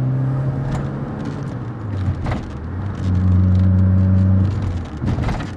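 2006 Fiat Punto 1.4's engine and road noise heard from inside the cabin while driving: a steady low drone that dips about two seconds in, comes back lower in pitch and louder for a second and a half, then eases off near the end.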